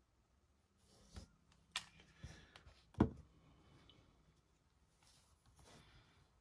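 Handling noise on a work desk: a few light knocks and taps, the sharpest about three seconds in, with soft rubbing and rustling as a 3D-printed figure is picked up off the cutting mat.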